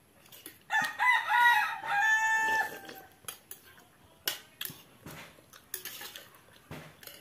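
A rooster crows once, starting about a second in, a stepped cock-a-doodle-doo lasting about two seconds. After it come scattered sharp clinks of a metal spoon against a steel bowl.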